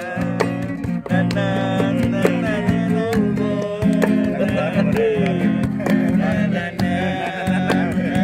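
Nylon-string classical guitar strummed in a steady rhythm, with voices singing a melody along with it.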